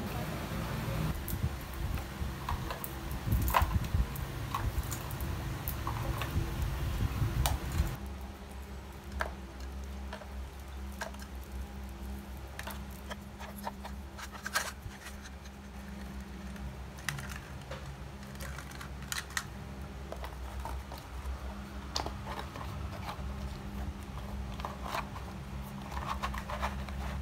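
Scattered light clicks and rustling as Christmas decorations are handled and a tinsel garland is wound up and packed into a cardboard box, over a steady low hum.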